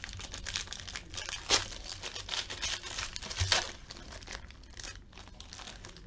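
Hockey card pack wrapper being torn open and crinkled by hand, with a few sharper crackles, thinning out after about three and a half seconds.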